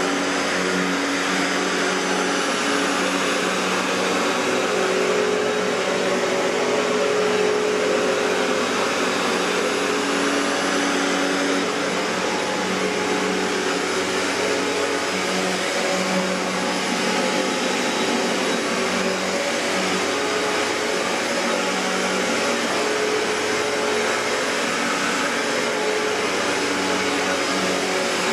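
1994 Riccar N2000 upright vacuum cleaner, with its Panasonic-built motor, running steadily at a constant level.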